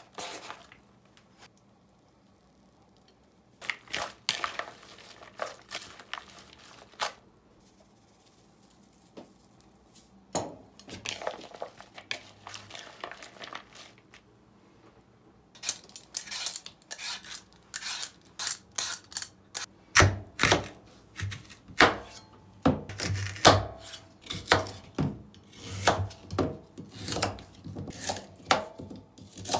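Kitchen work sounds: dishes and utensils clinking and knocking. They are scattered at first, then become a dense run of quick knocks and clatter through the second half.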